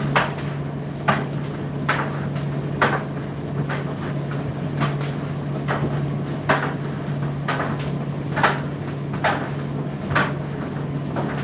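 Indesit IDC8T3 condenser tumble dryer running mid-cycle: a steady low motor hum as the drum turns, with the load tumbling and knocking against the drum about once a second.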